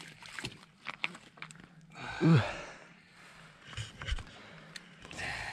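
Scattered clicks and knocks from handling the landed fish and gear on the ice. About two seconds in comes a short, loud vocal grunt whose pitch rises and falls, and a low thud follows near the four-second mark.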